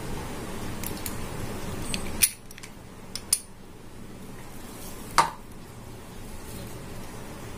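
A few sharp clicks and taps of kitchen utensils being handled: one about two seconds in, a pair of lighter ones around three seconds, and another a little after five seconds. A low steady background noise drops away at the first click.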